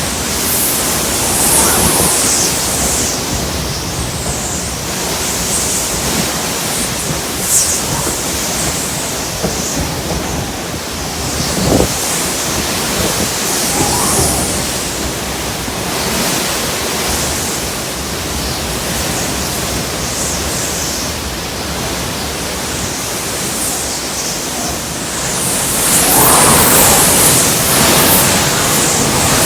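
Hurricane winds rushing steadily and swelling in gusts, loudest near the end.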